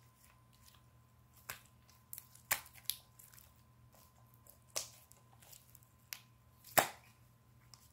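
Homemade glue slime being squeezed and stretched by hand, giving a scattered series of short wet clicks and pops, the loudest a little before the end.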